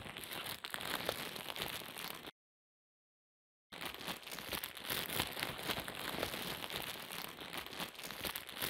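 Dense crackling and crunching, like vegetable flesh being cut and broken away, in two stretches with a dead-silent gap of about a second and a half between them about two seconds in.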